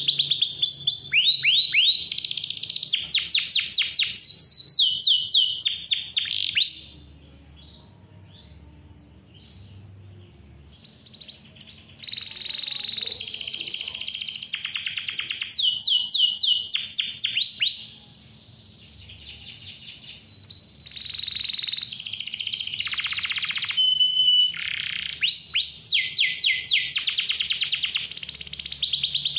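Domestic canary singing a clear, fast song of trills and rolls, each a rapid run of repeated high notes. It breaks off about seven seconds in and starts again some five seconds later.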